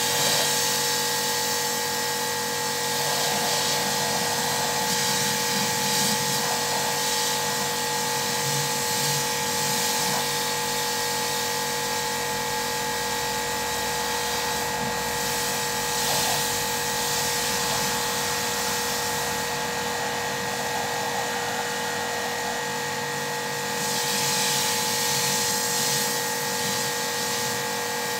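Kärcher HD 5/15 C electric pressure washer running under load, its motor and rebuilt pump giving a steady whine, with the hiss of the high-pressure water jet swelling and fading over it.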